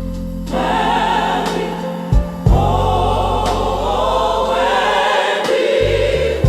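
Gospel choir singing with a band, over sustained bass and a few sharp drum hits.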